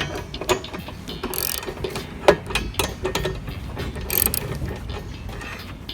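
A socket ratchet wrench clicking at a spark plug, with other metal tools clicking and clinking, and two short scrapes about a second and a half in and again after four seconds.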